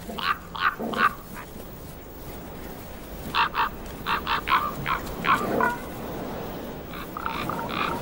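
Common ravens calling: runs of short, harsh croaks in quick succession, in three bouts with short pauses between them.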